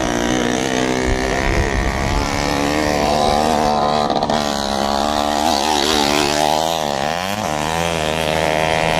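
Motorcycle engines racing on a dirt track, revving up and down as the riders work the throttle; about seven seconds in, the pitch drops sharply and then climbs again.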